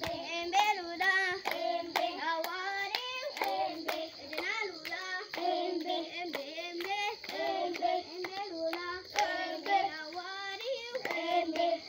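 Young children singing a chant together while clapping their hands.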